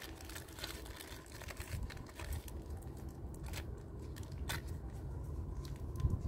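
Thin plastic bag crinkling as it is handled, with irregular small crackles and ticks, over a low rumble.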